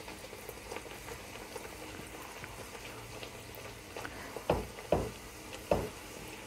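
Bhatura deep-frying in hot oil: steady sizzling and bubbling with small crackles. Three loud knocks come a little past halfway through.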